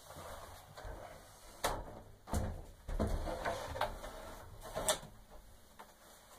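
Swivel caster wheels of a steel table frame rolling across a hard floor, with a low rumble and several sharp clicks and knocks from the frame and casters.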